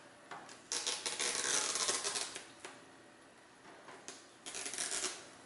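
Hands fumbling inside an opened 27-inch iMac for the adhesive strip that holds the bottom of the screen: dry scratching and rustling, one longer spell starting about a second in and a shorter one near the end.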